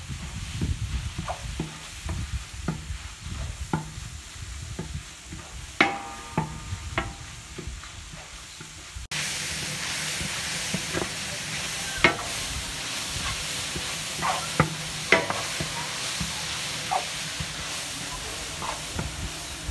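Spatula scraping and knocking against a large aluminium kadai while shredded cabbage, carrot and beans are stir-fried, one stroke ringing briefly. Under it the vegetables sizzle in the oil, and a steady hiss jumps louder about halfway through.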